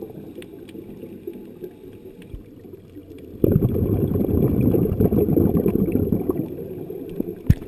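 A diver's exhaled breath bubbling out of an underwater regulator, heard muffled through a camera's waterproof housing. A quieter stretch comes first, then a loud burst of bubbles starts suddenly about halfway through and fades toward the end. There is a single short knock near the end.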